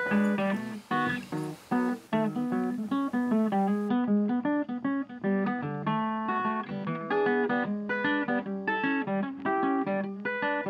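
Background music of plucked acoustic guitar, a steady run of short, quick notes.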